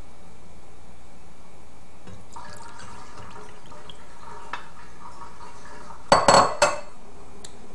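Thick juice pouring from a glass measuring cup into a small glass cup, a faint steady trickle as it fills. About six seconds in, three or four loud knocks and clinks of glass as the measuring cup is set down on the counter.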